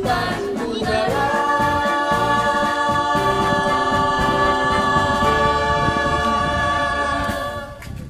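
Sung music: voices hold one long chord, which breaks off shortly before the end.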